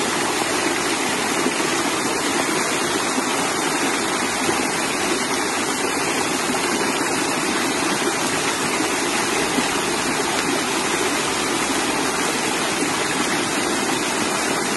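A stream's water rushing steadily, a dense, even sound without pauses.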